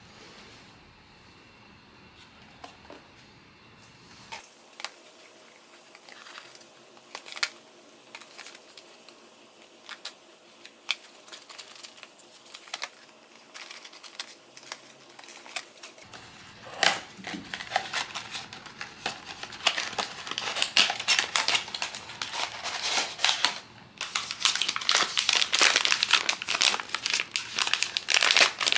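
Blind-box packaging being handled and opened: light, scattered clicks and rustles at first, then wrapping crinkling and tearing, growing denser and louder through the second half.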